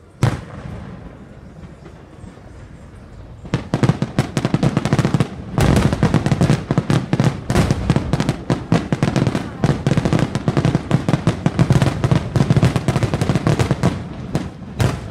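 Fireworks: one bang right at the start, then from about three and a half seconds a dense, rapid barrage of bangs and crackling that runs until just before the end.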